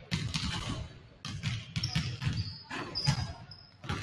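Basketballs bouncing on a hardwood gym floor, several dribbled at once in quick irregular thumps, with a few short high-pitched squeaks.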